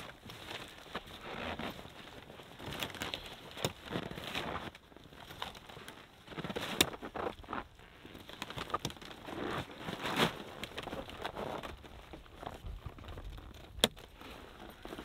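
Hot tent being fastened to its arched poles: canvas rustling with a few sharp clicks scattered through it.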